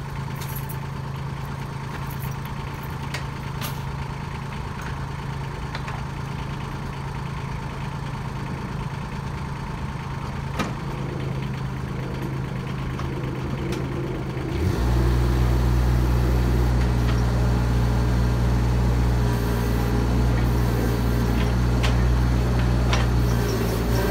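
Bobcat E20 mini excavator's diesel engine idling steadily, then throttled up about two-thirds of the way through and running louder while the operator works the boom.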